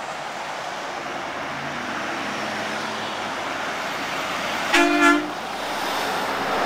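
A vehicle horn toots twice in quick succession over steady road noise.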